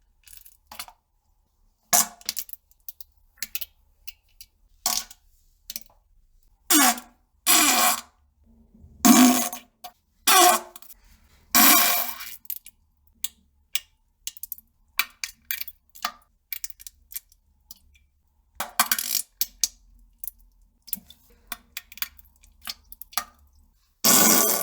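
Bowel-movement sounds: a series of separate farts and plops into a toilet, each a short burst with pauses between. The loudest come between about seven and twelve seconds in, with another near the end.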